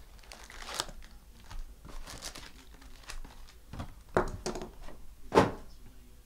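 A cardboard hobby box being opened and its foil-wrapped trading card packs crinkling and rustling as they are pulled out and handled, with a few sharper knocks; the loudest comes about five seconds in.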